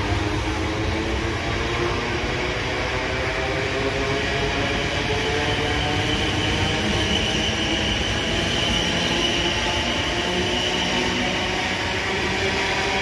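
A train running through the station: a steady low rumble with several whining tones that slowly drift in pitch, and a higher whine that swells in the middle.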